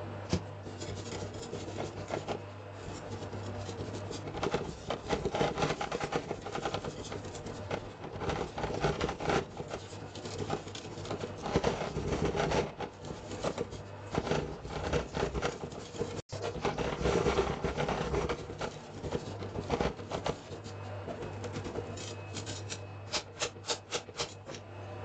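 Metal spatulas chopping and scraping on a steel ice-roll cold plate as brownie pieces are chopped into the freezing ice cream base and worked together: a rapid, irregular clatter of metal strokes. Near the end a quick run of evenly spaced taps as the spread sheet is scored. A steady low hum runs underneath.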